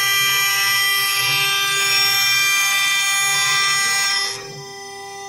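A 6040 CNC router's spindle at 22000 rpm drives a 6 mm four-flute end mill through steel on a light 0.25 mm stepdown adaptive-clearing pass. It makes a loud, high-pitched cutting screech with steady whining tones, which drops away about four seconds in.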